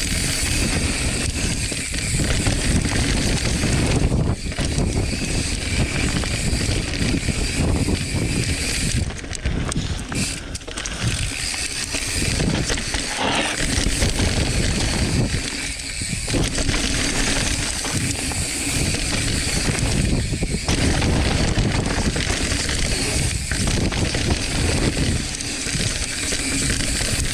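Mountain bike riding fast down dry dirt singletrack: a continuous, uneven rush of tyre and trail noise with a heavy low rumble, changing as the bike rolls over rougher and smoother ground.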